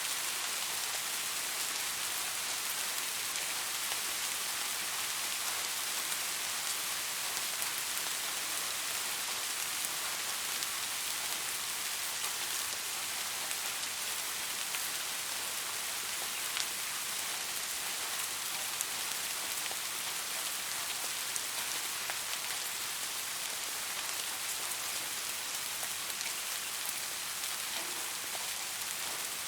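Steady rain falling, a constant hiss with scattered individual drops ticking on a surface.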